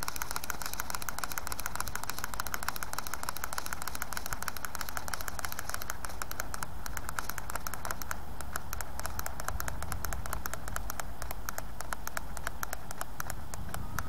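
Rapid, steady plastic clicking as the rubber-band motor of a toy ornithopter is wound up by hand, about 40 turns. Wind rumbles on the microphone underneath.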